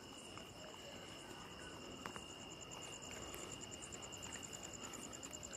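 Faint chirping of night insects: a steady high-pitched trill, with a faster pulsing chirp above it that grows stronger about halfway through.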